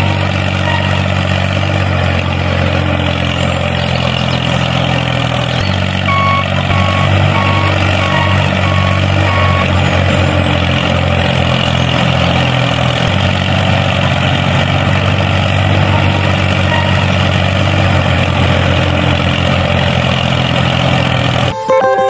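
A large vehicle's engine running steadily, with a reversing alarm beeping in an even run of about seven beeps near the middle.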